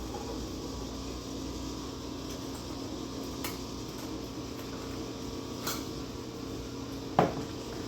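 Steady mechanical hum of a kitchen appliance running, with a few light clicks and one sharper knock near the end.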